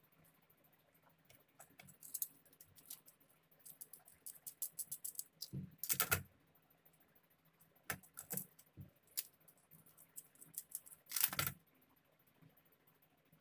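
Small clicks and rattles of a plastic switch board, socket and small brass screws being handled while the socket is fitted into the board, with two louder knocks, one about halfway through and one near the end.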